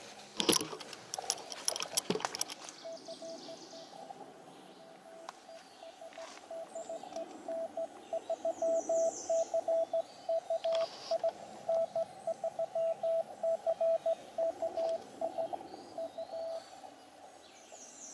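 Morse code (CW) on one steady mid-pitched tone from an Elecraft KX2 transceiver, keyed on and off for about thirteen seconds and stopping shortly before the end. Several sharp knocks from the camera being handled come in the first couple of seconds, and birds chirp faintly.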